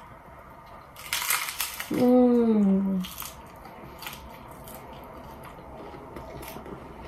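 A crunchy hard-shell taco bitten into about a second in: a brief crunch of the shell, followed by a short falling "mmm" hum, the loudest sound. Then quieter chewing with small crunches.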